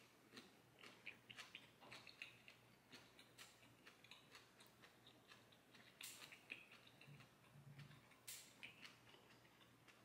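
Faint, close chewing of crisp, lightly fried Brussels sprouts: a run of soft, irregular crunches and clicks, with a few stronger crunches about six and eight seconds in.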